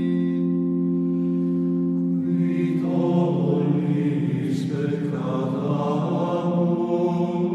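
Slow, chant-like background music with long held notes; a fuller, wavering layer of voices comes in about two to three seconds in.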